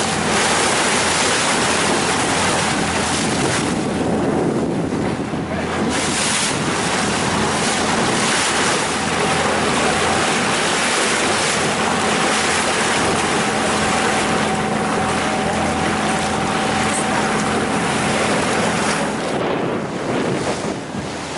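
Glass-bottom tour boat under way on choppy sea: a steady engine hum under wind buffeting the microphone and water rushing past the hull.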